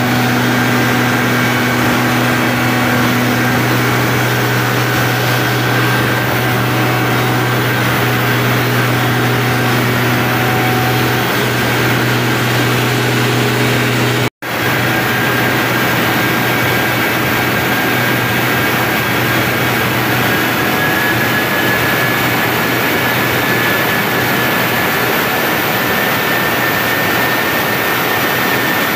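Greaves Cotton 12-cylinder diesel generator set running loud and steady at about 1500 rpm under heavy load during a load test. It is a steady drone with a thin high whine that rises slightly in pitch in the second half. The sound drops out for an instant about halfway through.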